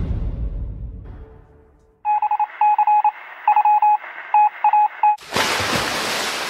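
Music fades out, then short electronic beeps at a steady pitch sound in uneven clusters for about three seconds, like a phone keypad being dialed. A sudden burst of hissing noise follows and fades away.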